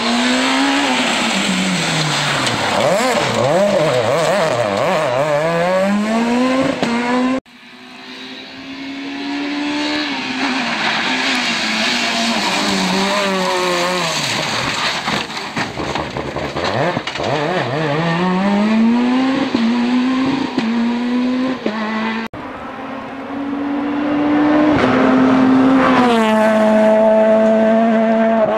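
Peugeot 207 S2000 rally cars' naturally aspirated 2.0-litre four-cylinder engines driven flat out, the revs climbing and dropping repeatedly through gear changes and lifts for corners. Three separate passes cut together, each cut off abruptly; in the last one the revs are held high and steady near the end.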